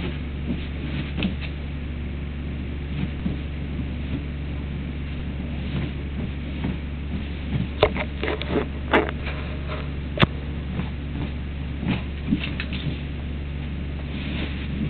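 Doberman puppy's claws scratching and scrabbling at a couch in irregular bursts, busiest with a run of sharp scrapes about halfway through, over a steady low hum.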